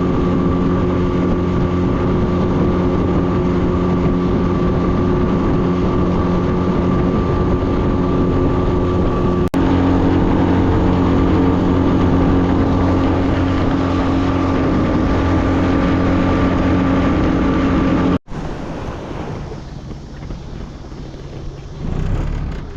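Boat outboard motor running steadily under way, with wind and water noise. About three-quarters of the way through the engine sound cuts off abruptly, leaving a quieter rushing noise.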